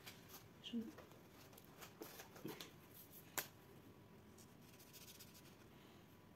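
Near silence with soft handling sounds of paper and crafting tools: a few light taps and clicks, and one sharper click about three and a half seconds in.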